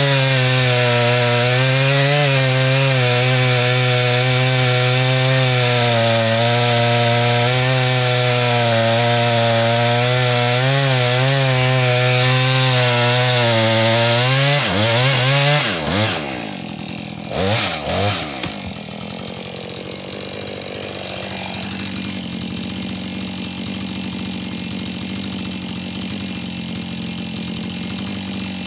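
Husqvarna 440e two-stroke chainsaw running at full throttle while cutting through a log, its pitch wavering under load. About 15 seconds in the throttle is released and the pitch falls, two short blips follow, and the saw settles to a steady idle.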